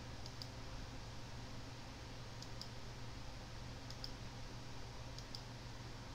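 Computer mouse clicking: four quick pairs of faint clicks spread over about six seconds, over a steady low hum.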